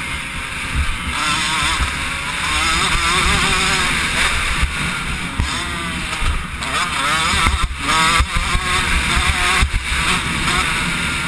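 85cc two-stroke motocross bike engine revving up and dropping back over and over as it is ridden, with short throttle cuts about 8 and 10 seconds in.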